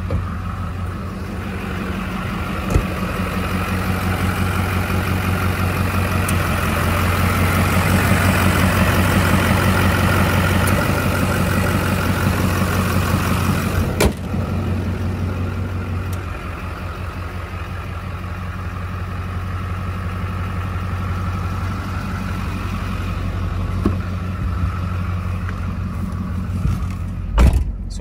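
Duramax 6.6 L V8 diesel idling shortly after a cold start, with no typewriter tick, the tick quieted by Mobil 1 Turbo Diesel Truck 5W-40 oil. The idle swells for a few seconds in the middle, with a sharp click about halfway and a thump near the end.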